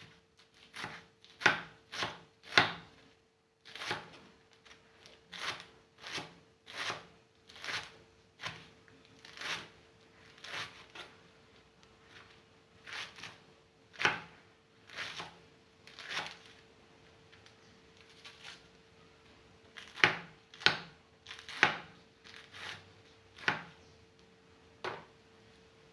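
A knife chopping collard greens (sukuma wiki) on a cutting board: a long run of sharp, separate cuts, about one or two a second, with a brief pause about two-thirds of the way through. A faint steady hum runs underneath.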